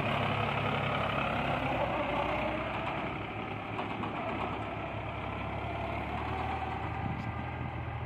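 Mahindra tractor's diesel engine running at steady revs as it pulls a steel tipping trolley, getting a little fainter after about three seconds.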